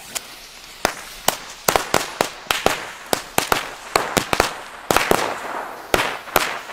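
A firecracker chain from a Weco Fire Fantasy assortment going off: a fast, irregular run of sharp bangs, roughly three a second, with a hiss between them.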